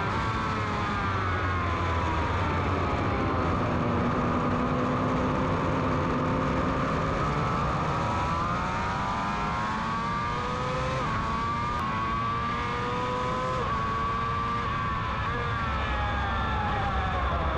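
600 cc sportbike engine at speed on track. The revs fall as the rider brakes and shifts down, hold low, then climb hard through two upshifts before easing off again near the end, over steady wind rush.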